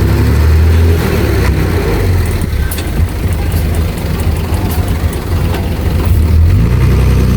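Heavy diesel engine of an earthmoving machine running under load, a deep steady rumble that rises in pitch about six and a half seconds in.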